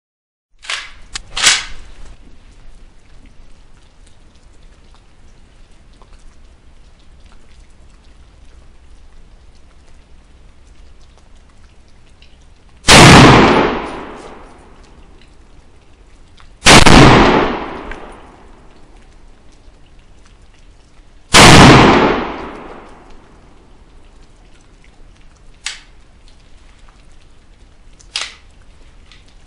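Three rifle shots from a Molot VEPR in 7.62x54R with a 16-inch barrel, firing 148-grain full-metal-jacket rounds. They come about four seconds apart, each a sharp crack with a long echoing tail. A few lighter clicks come near the start and near the end.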